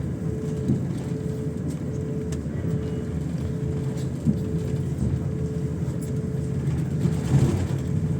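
Steady low rumble of a jet airliner heard from inside the cabin, with a steady hum over it and a brief knock about four seconds in.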